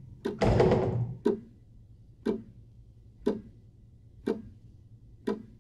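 Wall clock ticking, one sharp tick a second. About half a second in, a short, louder rushing sound lasts under a second.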